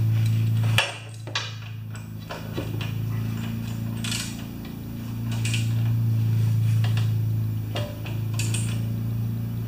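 Metal clicks and knocks of a wrench tightening the oil drain plug in a small generator's aluminium crankcase, over a steady low hum that dips about a second in.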